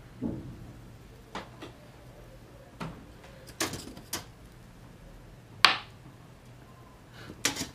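Scattered small clicks and knocks of fishing tackle being handled on a tabletop while a hook is threaded onto the line, about nine in all, the sharpest a little past halfway.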